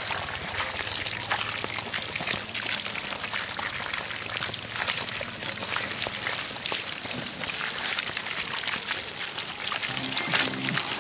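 A big pile of small live fish flapping in a wet net, a dense crackle of many small wet slaps and clicks over trickling water.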